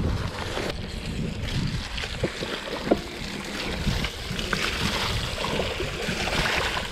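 Wind buffeting the microphone in an uneven low rumble, with scattered small knocks and clicks.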